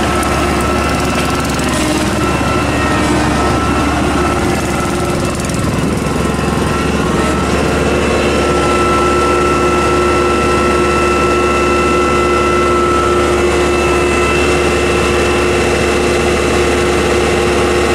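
Iseki TA-C56 crawler tractor's engine running steadily, with a steady whine that grows stronger about halfway through.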